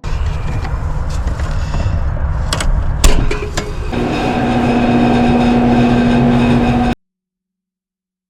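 Lennox outdoor A/C condenser unit running with a steady rumble. A few sharp clicks come about three seconds in, and about a second later a steady hum joins. The sound cuts off suddenly near seven seconds in.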